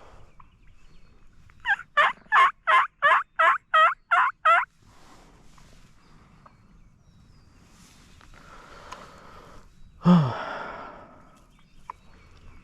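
A wild turkey's call (or a hunter's turkey call): a quick series of about nine yelping notes, each sliding in pitch. About ten seconds in comes one loud gunshot, the shot that kills the jake.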